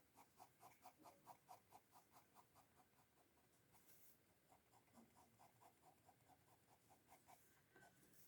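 Pencil shading rapidly on paper: faint, quick back-and-forth scratchy strokes, about five a second, with a short pause in the middle.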